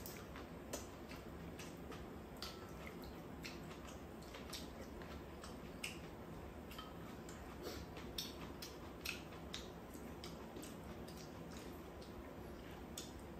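Spoons clicking and scraping against bowls while two people eat fried rice and soup, with soft sipping and eating sounds. Light, scattered clicks come every second or so over a quiet background.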